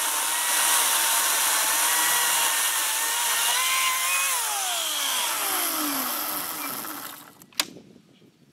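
Echo 58-volt battery chainsaw cutting through a log: a steady electric whine over the rasp of the chain in the wood. About four seconds in the whine rises slightly, then winds down in a falling whine to a stop about seven seconds in. A single sharp knock follows.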